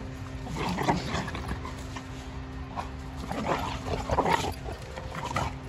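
A pit bull and a boxer play-fighting, with four or five short bursts of dog vocalising as they wrestle, over a steady low hum.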